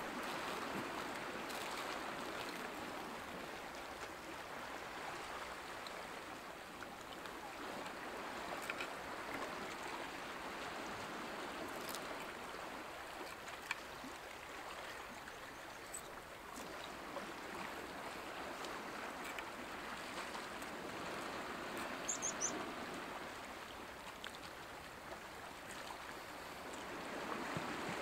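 Calm sea washing and trickling gently over shoreline rocks, a steady soft wash of water, with a few faint light clicks.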